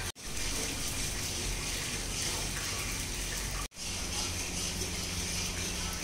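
Steady rushing background noise with a low hum, cutting out abruptly twice: just after the start and a little past halfway.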